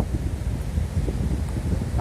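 Strong wind buffeting the microphone: a steady, gusty low rumble.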